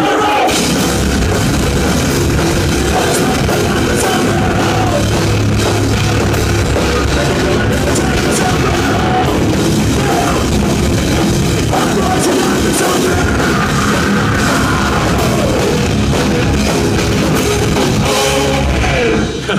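Live heavy rock band playing loud: distorted electric guitars, bass and a pounding drum kit. The music breaks off right at the end.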